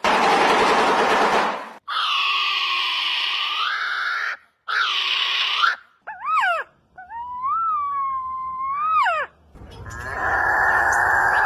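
A run of strange bird calls one after another: harsh, raspy calls first, then quick whistled sweeps and a longer whistle that rises and falls, and a buzzy call near the end.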